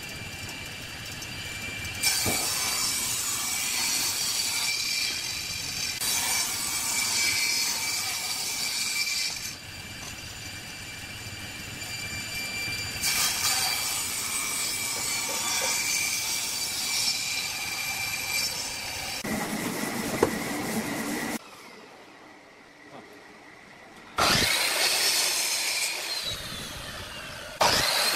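Table saw running with a steady whine, its blade cutting a thick hardwood board in repeated passes, each pass a long loud spell of cutting. There is a short quieter stretch about three quarters of the way through, then cutting again.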